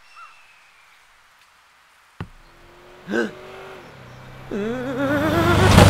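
Cartoon sound effects: a sharp click about two seconds in, then a held tone and a short chirp. A wavering, rising whine follows over a low rumble that builds until it is loud near the end.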